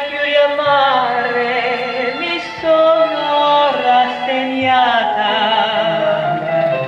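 Recorded music playing through a hi-fi system's loudspeakers: a sung melody with vibrato over sustained bass notes.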